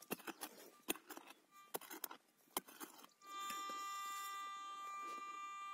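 A pickaxe chopping into soil, a run of sharp separate knocks. About three seconds in, a metal detector's steady target tone starts and holds.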